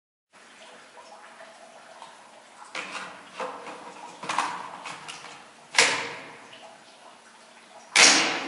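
A series of sharp gunshot-like reports, each with a short decay, over faint background noise. Three lighter ones come in the middle, and the two loudest come near the end, about two seconds apart.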